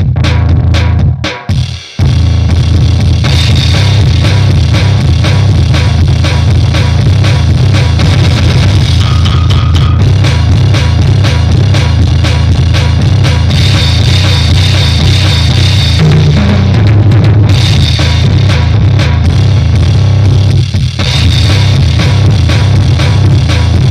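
Goregrind music: distorted guitar and bass over fast, dense drumming. It opens with a few short stop-start hits, then runs as a solid wall of noise with a brief break about 21 seconds in.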